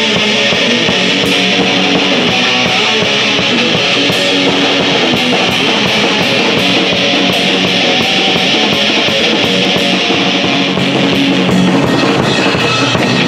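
Live rock band playing: an electric guitar over a drum kit keeping a steady, driving beat.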